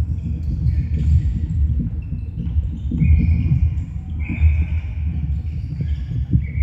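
Sneakers squeaking on a wooden sports-hall floor, three short squeaks in the second half, over a steady low rumble and thuds of players running on the court.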